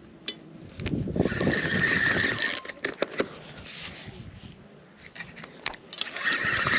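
Runcl Titan II spinning reel being cranked under the load of a hooked bonnethead shark: its gears whir with a steady high whine for a second or so at a time, in two spells, with a few sharp clicks between them.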